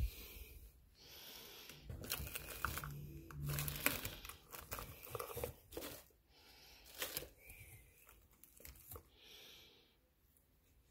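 Plastic bubble wrap and cardboard packaging crinkling and rustling as they are handled, with scattered sharp clicks and taps.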